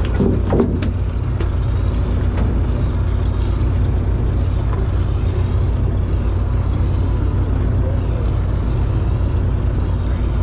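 Long-range sportfishing boat's diesel engines running steadily underway, a constant low drone with water rushing along the hull. A few sharp knocks come in the first second.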